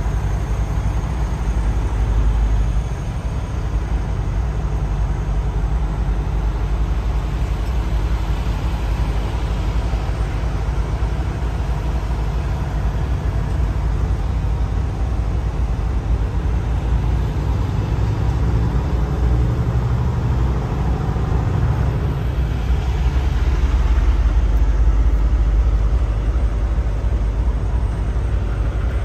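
Semi truck's diesel engine running, heard inside the cab as the truck creeps through a parking lot: a steady low rumble that swells for a few seconds near the end.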